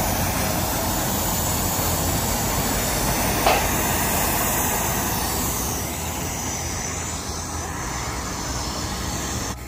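Steady rushing airport apron noise, with one sharp click about three and a half seconds in. It grows a little quieter about six seconds in.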